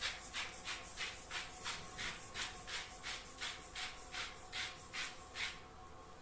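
Salt being dispensed into a mixing bowl: a steady run of short gritty rasps, about three a second, stopping shortly before the end.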